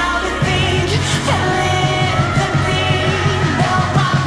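Background music: a pop-rock song with sung vocals, and a bass line that comes in about half a second in.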